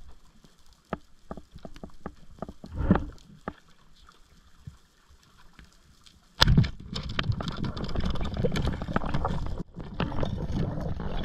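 Underwater sound on a diving camera: scattered sharp clicks and snaps, then about six seconds in a sharp crack followed by several seconds of loud, dense gurgling bubble noise, with a brief break near the end.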